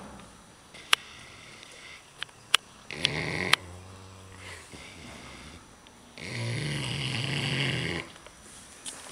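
Sleeping pigs snoring: a short snore about three seconds in and a long, steady snore of about two seconds starting around six seconds in. A few sharp clicks fall in the first four seconds.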